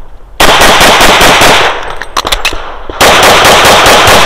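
Semi-automatic pistol fired in two rapid strings of shots during a USPSA stage, the second string starting about three seconds in after a short pause.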